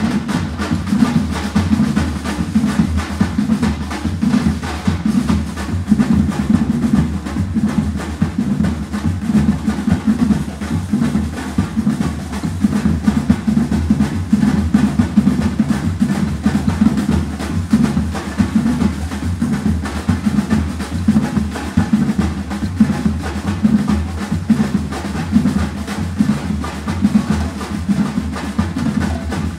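A batucada-style street drum group playing together: large surdo bass drums with snare drums in a steady, driving rhythm that does not break.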